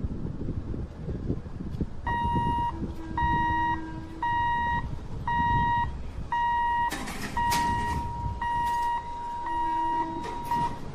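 Level-crossing warning hooter beeping: a high, steady electronic tone, about one beep a second, starting about two seconds in and running almost continuously near the end, the signal that a train is approaching and the gate is closed. A lower tone sounds briefly twice under it.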